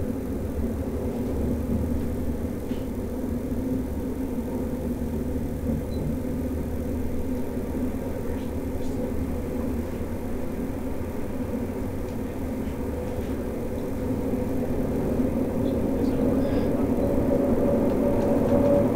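Interior of an electric commuter train running at speed: a steady rumble of wheels on rail with a level motor hum, growing louder over the last few seconds.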